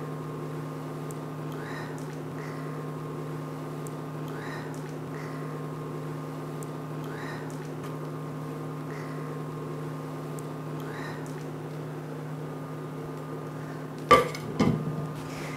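Induction hob humming steadily with a pot of water bubbling faintly under its lid. Near the end the glass pot lid is lifted, with two sharp clinks.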